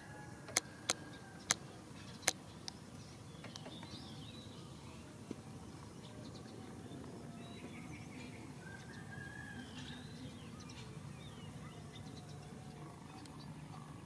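Birds chirping here and there, with four sharp clicks in the first two and a half seconds and a faint low hum in the second half.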